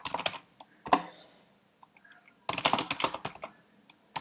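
Typing on a computer keyboard: two bursts of quick keystrokes with a short pause between them.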